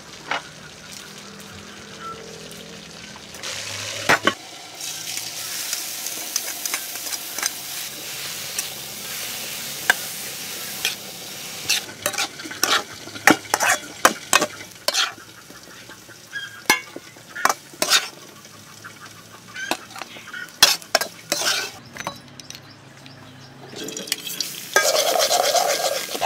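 Shredded ginger frying in oil in a steel wok, a steady sizzle, with a metal spatula scraping and tapping against the wok as it is stirred. The sizzling grows louder near the end.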